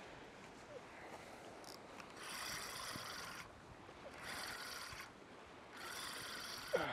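A spinning fishing reel rasps in three runs of about a second each while a hooked fish is played on the surf rod. A sharp click comes near the end.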